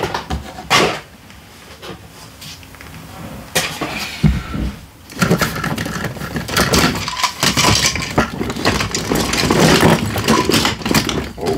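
A hand rummaging through a cardboard box full of plastic toys and action figures, the toys clattering and knocking against each other. There are two sharp knocks near the start, and the clatter becomes busy from about three and a half seconds in.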